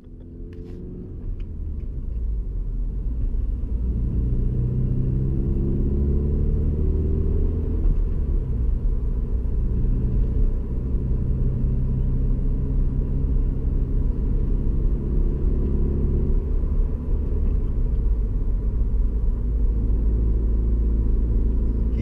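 Toyota 86's 2.0-litre flat-four boxer engine and road rumble heard from inside the cabin as the car drives off and accelerates. The sound builds over the first couple of seconds, the engine note rising in pitch and then dropping back and rising again, as with upshifts through the manual gearbox.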